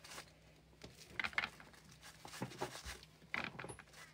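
Paint-covered bubble wrap being handled and dabbed with a foam sponge brush: a few short, soft rustles and dabs about a second apart.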